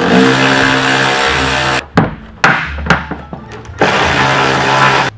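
Cordless power tool running in two bursts of a second or two each, a motor whine under a coarse rattle, with a few sharp clicks in the pause between them as it works on the fasteners holding the fender flare.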